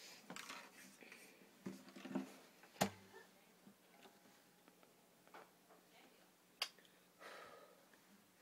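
Near silence in a small room, broken by a few faint brief sounds and two sharp clicks, one about three seconds in and one near seven seconds.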